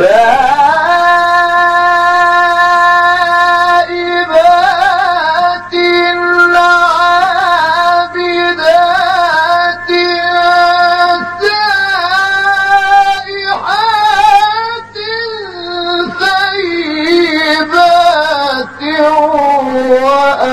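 A male Quran reciter in the ornamented mujawwad style, voice pitched high. He holds one steady note for about four seconds, then winds the vowel through melismatic turns and wide swoops in pitch, with only brief breaks.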